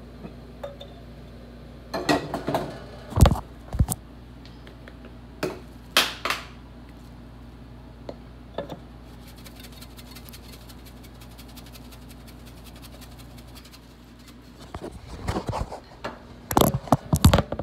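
Scattered knocks and clinks of cookware being handled at an enamel roasting pan, with a dense clatter near the end as the pan's lid is handled, over a steady low hum.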